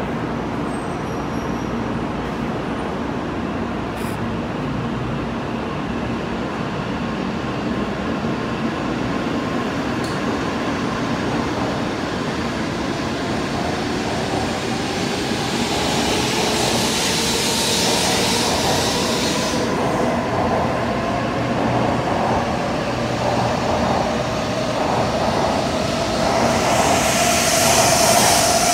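N700A Shinkansen train pulling out of the station and accelerating. Its traction motor whine climbs steadily in pitch over a rolling rumble that gets louder. Rushes of hiss come about two-thirds of the way through and again near the end.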